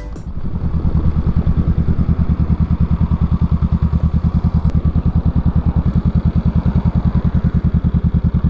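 Honda Rebel motorcycle engine idling steadily, its exhaust giving a rapid, even pulse.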